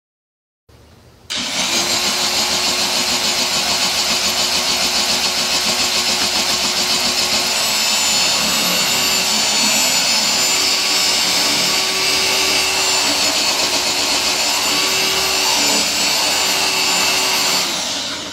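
Electric car polisher running steadily on speed 4, its foam buffing pad spinning against the pad washer's grit guard to clean out polish; the footage is sped up. It starts about a second in, after a short silence, and cuts off just before the end.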